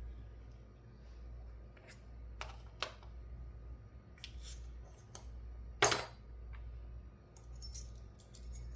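Scattered light metallic clicks and taps of small brass lock pins, springs and picking tools being handled, over a low steady hum. The sharpest tap comes about six seconds in, and a run of faint ticks follows near the end.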